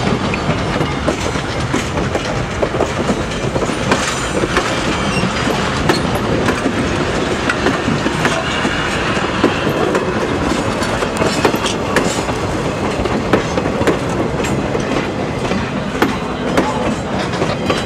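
Railroad passenger coach and cabooses rolling past close by, their steel wheels clattering on the rails with frequent sharp clicks.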